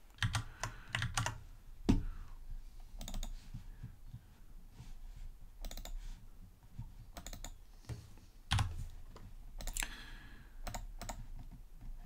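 Computer keyboard keys and mouse buttons clicking at irregular intervals, single clicks and short runs, as a fillet radius is typed in and applied in a CAD program.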